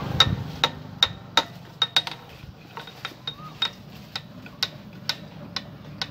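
Sharp metallic clicks with a short ring, about two a second and slightly irregular, from a socket wrench being worked on the clutch nut of a stripped-down motorcycle engine.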